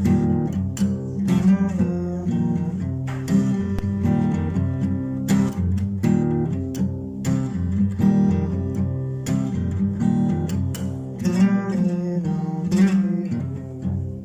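Acoustic guitar playing a downhome blues, picked and strummed.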